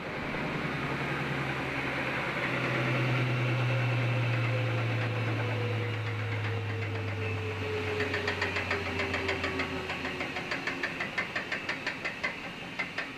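GE top-load washing machine's spinning basket coasting down after being switched off, its hum falling slowly in pitch and fading. From about two-thirds of the way in, a rhythmic ticking, once per turn, slows as the basket winds down, like something lightly hitting as it turns.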